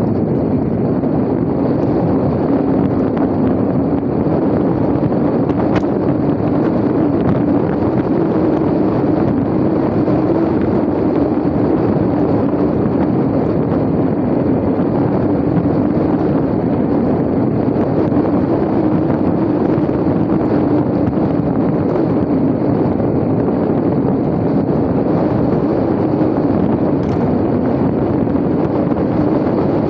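Steady wind rushing over the microphone of a moving electric bike, with a constant low hum underneath.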